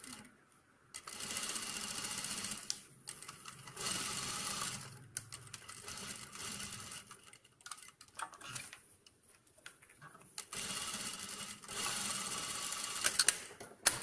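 Industrial single-needle sewing machine stitching in about five short runs of a second or so each, stopping briefly between them, with a few sharp clicks near the end.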